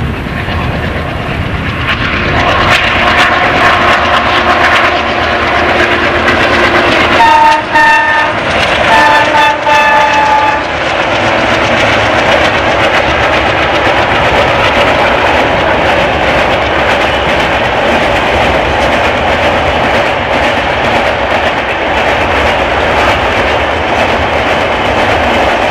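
Diesel locomotive (WDM-3A ALCo) accelerating under a heavy 21-coach Rajdhani Express, its engine noise building over the first couple of seconds. The horn sounds twice, about seven and nine seconds in, and the second blast is longer. The long rake of coaches then rolls past with steady wheel and rail clatter.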